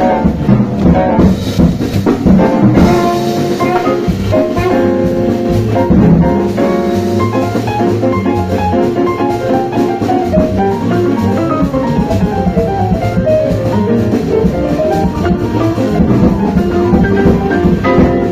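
Small jazz group playing at a sound check: a saxophone line over a drum kit.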